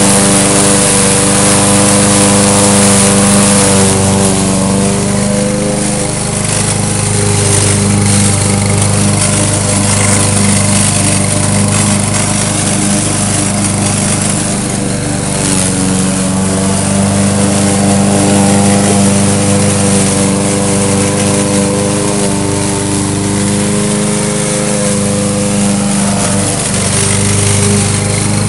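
A push mower's small gasoline engine running steadily, its pitch dipping slightly about four seconds in and again midway.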